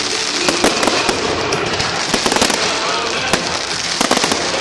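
Fireworks going off in quick succession: a steady run of bangs and crackles over a constant hiss, with clusters of reports about a second and a half, two and a half, and three and a half seconds in.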